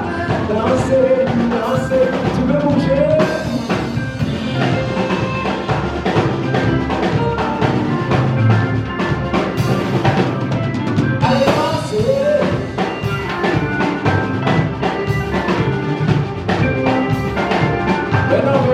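Live church praise band playing a fast, steady drum-kit beat with bass and keyboard, and voices singing over it at times.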